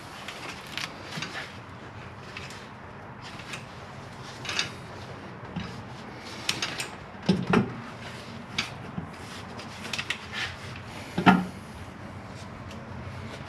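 Scattered clicks, knocks and light scrapes of intake manifold parts being handled and pushed into place on their O-rings, with two heavier thumps at about seven and eleven seconds in.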